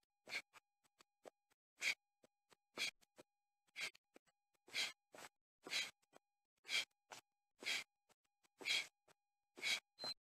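Rhythmic sounds of a person doing jumping exercise on a gritty path: a short, noisy burst about once a second.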